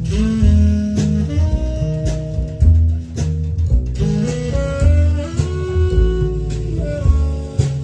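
Jazz music played back through Jamo S606 loudspeakers: horn lines that sound like saxophone over deep bass notes, with sharp drum hits scattered through it.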